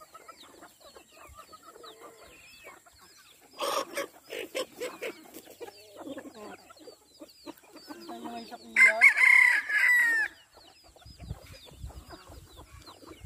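Free-range chickens clucking and chicks cheeping while they feed, with a short clatter about four seconds in. A rooster crows loudly for about a second and a half about nine seconds in.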